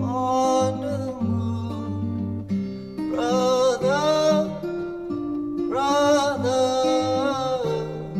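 Background music: a song with a sung voice over acoustic guitar.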